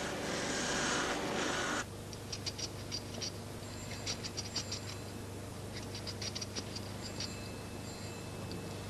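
A hand-held rotary burr grinding a rough metal engine casting, a steady hiss that stops abruptly about two seconds in. After it, a few scattered clusters of light, high clicks as small metal parts are handled, over a low hum.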